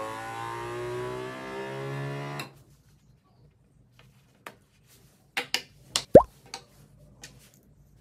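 Small airbrush compressor humming, then cutting off abruptly about two and a half seconds in. A few sharp clicks follow, with a short, loud plop about six seconds in, as the airbrush and its hose fitting are handled.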